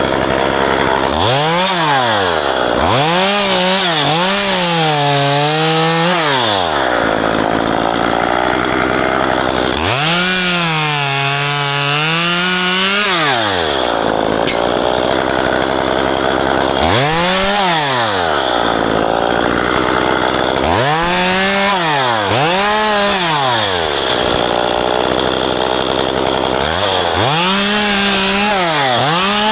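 Two-stroke chainsaw revved up to full throttle about five times, dropping back to idle in between; while held at high revs its pitch sags, as it does when the chain bites into wood cutting ficus branches.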